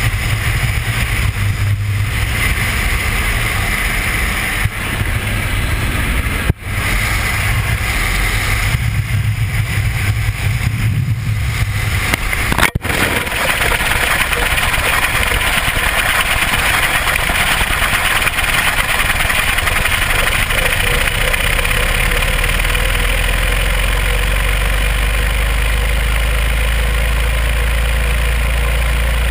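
Wind buffeting a GoPro camera's microphone, with the steady drone of the skydiving plane's engine underneath. A little before halfway the engine drone drops away and the sound becomes a steady, louder rush of wind as the camera tumbles in free fall, with a deep rumble added in the last few seconds.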